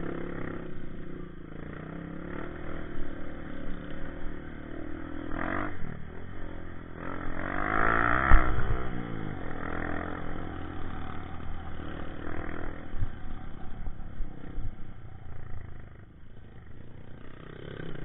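Honda CRF150 dirt bike's single-cylinder four-stroke engine running under throttle. About seven seconds in it revs up and back down, the loudest moment, with a few thumps at its peak, then settles back to a steady run.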